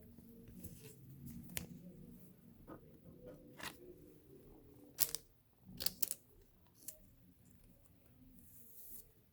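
Faint handling noise of trading cards and their packaging: scattered light clicks and taps with soft rustling, the sharpest clicks about five and six seconds in.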